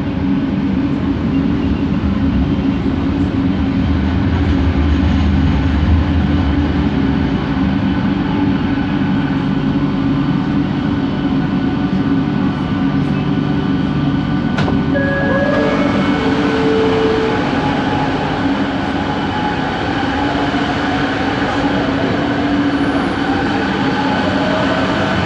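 Kelana Jaya Line train's original linear-induction traction motor running, heard from inside the carriage: a steady hum with stacked motor tones, a sharp click about halfway through, then several whining tones that glide in pitch.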